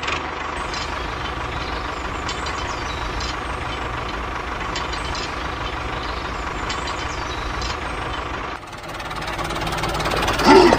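Tractor engine running steadily with a low, even rumble. About eight and a half seconds in it drops off, then swells again, with a short sharp burst just before the end.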